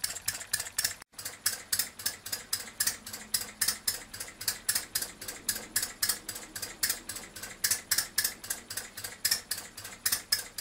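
Two-cylinder four-stroke hot bulb model engine running, its exposed valve gear and injection pump linkage making a fast, even mechanical clicking several times a second.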